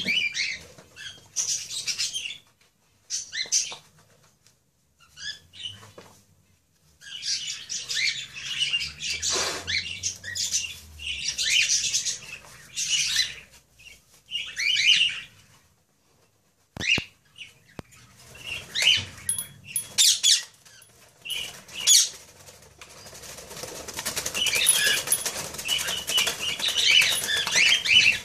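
Ringneck parakeets flapping their wings in an aviary cage, in irregular bursts with short quiet gaps and a busier spell near the end.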